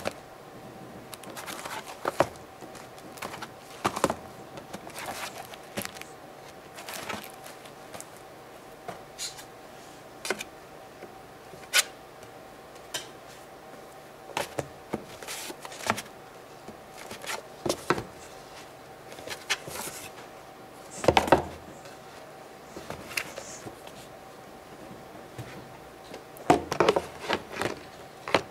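Small boxes being handled and set down on a table: scattered irregular taps and knocks, with a denser run of knocks about two-thirds of the way in and again near the end, over a faint steady hum.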